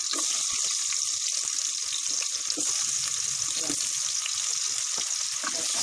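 Chopped red onions sizzling in hot cooking oil in a pot as they begin to sauté: a steady hiss with scattered crackling pops.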